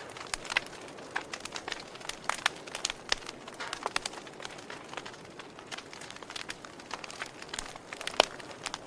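Fire crackling: irregular sharp pops and snaps, several a second, over a steady low hiss, with one louder pop about eight seconds in.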